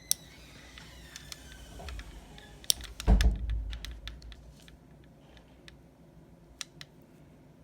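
Scattered sharp clicks and light handling of small tools, with one dull low thump about three seconds in.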